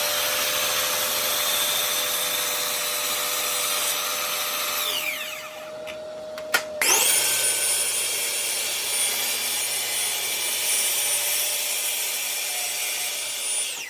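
Electric woodworking power tools running. The first winds down about five seconds in, a sharp click follows, then another starts up with a high whine, runs steadily and cuts off near the end.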